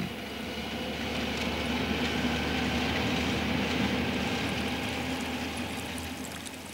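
A vehicle running steadily, with a low engine hum under its travelling noise; the sound swells slightly in the middle and fades away near the end.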